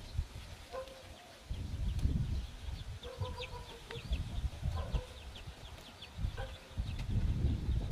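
A chicken clucking a few short, flat calls, spaced out across several seconds, over irregular low rumbling noise.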